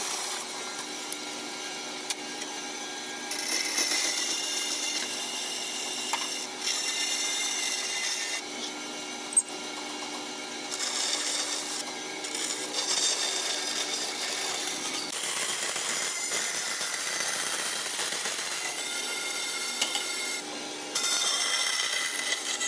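Bandsaw running steadily while its blade cuts the curved edges of a carved hardwood chair back. The saw's bright, hissing cutting noise rises in repeated passes of one to three seconds and drops back to the motor's hum between them. A single sharp click comes about nine seconds in.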